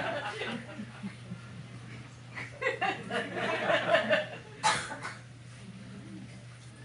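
Brief chuckling laughter about two seconds in, lasting a couple of seconds, followed by a single sharp knock-like sound, over a steady low hum.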